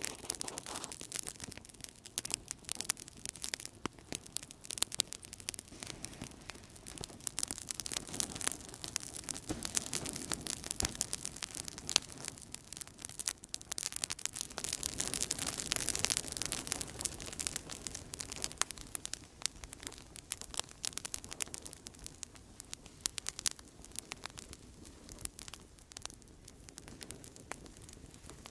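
Outdoor campfire crackling steadily: dense, irregular snaps and pops over a soft hiss, a little louder and busier through the middle.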